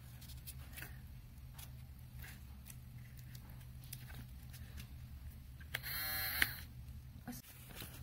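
Light taps and clicks of cardboard pieces being handled and pressed together over a low steady hum. About six seconds in, a short buzzing rasp lasts under a second.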